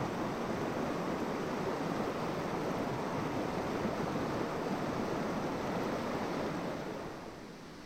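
Steady rushing of river current, easing off a little near the end.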